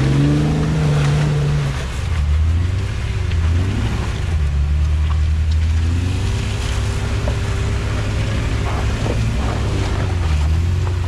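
Off-road Jeep engine running under load, its pitch rising and falling repeatedly as the throttle is worked to climb a trail obstacle.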